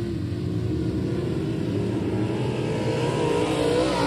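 Dirt-track modified race cars' V8 engines running on the track. The engine note rises and grows stronger over the second half as a car comes by close.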